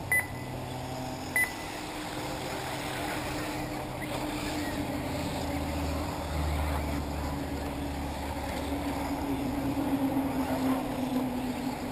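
Electric 1/8-scale RC buggies racing on a dirt track, making a steady motor drone that rises slowly in pitch. Two short high beeps sound about a second apart near the start.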